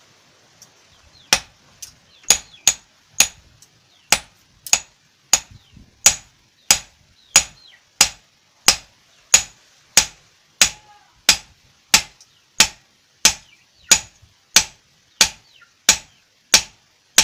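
Hand hammer striking a flat steel piece on a small steel post anvil: sharp ringing metallic blows in a steady rhythm, about three every two seconds, starting about a second in.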